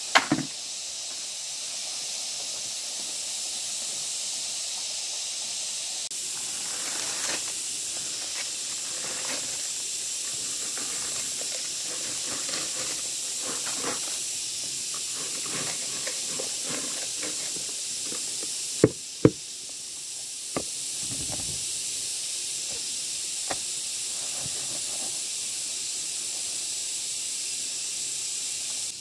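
Steady high hiss, with light scraping and scattered sharp knocks; two loud knocks come close together a little past the middle. The knocks and scraping fit hand work with bricks and mortar.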